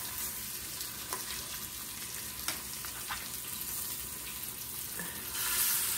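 Seasoned skin-on chicken thighs sizzling as they sear skin-down in hot avocado oil in an Instant Pot's stainless steel inner pot, crisping the skin. A few light clicks of metal tongs against the pot, and the sizzle grows louder near the end.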